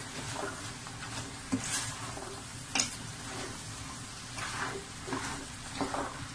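Wooden spoon stirring diced potatoes, carrots and minced chicken in a steel pot, scraping through the food with two sharper knocks against the pot early on, over a low sizzle of the oil frying underneath.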